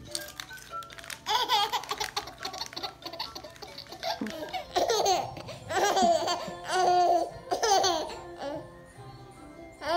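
A baby laughing in repeated bursts of giggles and squeals, over light background music.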